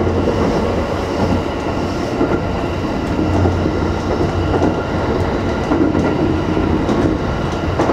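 JR West 225 series electric train running at speed, heard from inside its motored lead car: a steady rumble of wheels on rail with a few faint clicks over the rails.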